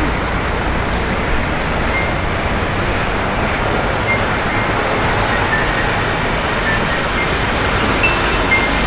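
Steady city street noise: road traffic running past, with a low rumble of wind on the microphone.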